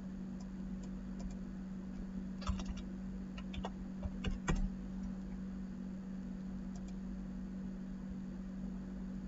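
A few computer keyboard keystrokes, clustered about two and a half seconds in and again around four seconds in, with fainter clicks elsewhere, over a steady low electrical hum.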